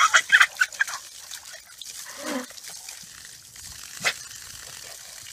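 A dog gives a quick run of short barks in the first second while snapping at water spraying from a garden hose, over the steady hiss of the spray. A single lower call comes about two seconds in, and a sharp click just after four seconds.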